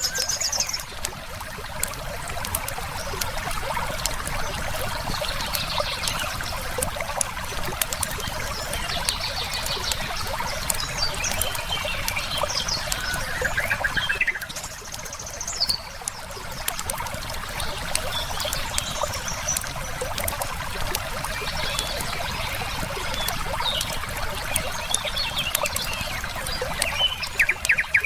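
Wood fire crackling with frequent small pops over the steady rush of a flowing river. Short trilled birdcalls come in now and then, several times through the stretch and again near the end.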